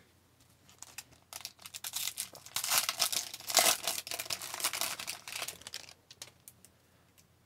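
Foil wrapper of an Upper Deck Allure hockey card pack being torn open and crinkled by hand: crackly crinkling that starts about a second in, is loudest in the middle, and dies away near six seconds, followed by a few light ticks.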